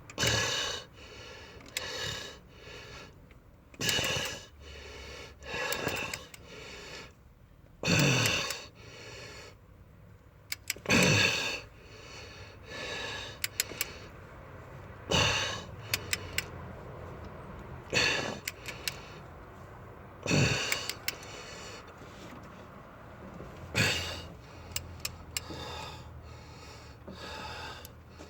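A man breathing hard and gasping with effort every few seconds while he strains to tighten engine head bolts, with a few short runs of clicks from the wrench.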